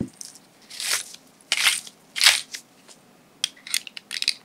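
Black pepper being ground over the bowl: three short crunching twists of a pepper grinder. Near the end come several sharp light clinks of a metal spoon against a small glass dish as salt is scooped.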